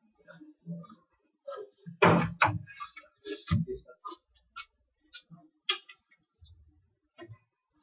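Irregular short clicks and knocks from handling around a pool table, with a couple of louder thumps about two and three and a half seconds in.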